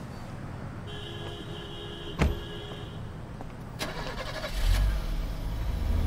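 A car door shuts with a sharp knock about two seconds in, a second softer clunk follows just under two seconds later, and then the sedan's engine rises as the car pulls away near the end.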